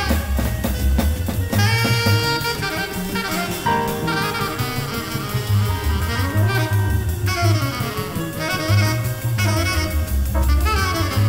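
1960s small-combo jazz: a tenor saxophone plays the lead with sliding, bent notes over a busy drum kit with cymbals and a double bass.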